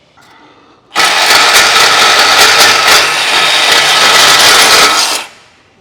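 A power tool runs hard for about four seconds, starting about a second in and stopping near the end, with a fast rattling texture, typical of a tool working off exhaust fasteners under a car.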